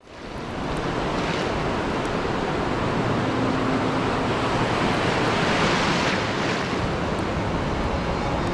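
Sea surf: waves breaking and washing up the shore in a steady rush. It fades in at the start and swells about a second in and again around six seconds.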